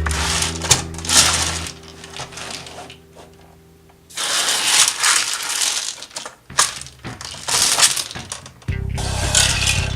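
Small hard beans rattling and clattering in irregular bursts as plastic toy construction trucks scoop and dump them, over background music that swells near the end.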